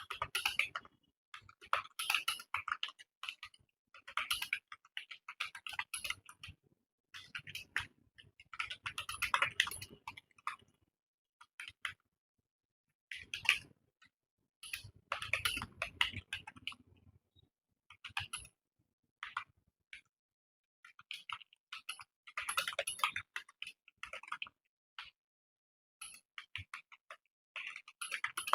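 Computer keyboard keys clacking in quick runs of typing, bursts of a second or two broken by short pauses.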